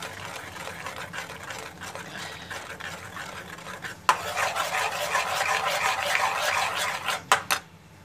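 Steel spoon stirring and scraping whipped cream around a steel kadhai. It gets louder after a sharp click about four seconds in, and there are two sharp knocks of metal on metal near the end.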